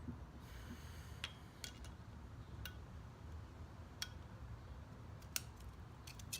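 Light metallic clicks of snap ring pliers working at a brake caliper's circlip, about six at uneven intervals over a faint low hum.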